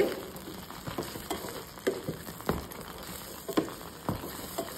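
Wooden spatula stirring syrup-soaked bread crumbs in a stainless steel saucepan over a gas flame: a low sizzle under irregular knocks and scrapes of the spatula against the pan.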